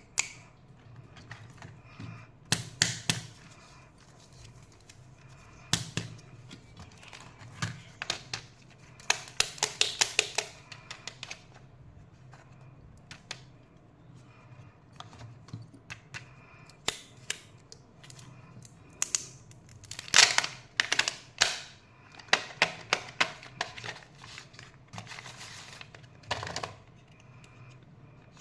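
Kinder Joy egg's plastic wrapper and shell being handled and opened: bursts of crackling and sharp clicks come in clusters every few seconds, the loudest around the middle, with quiet handling between.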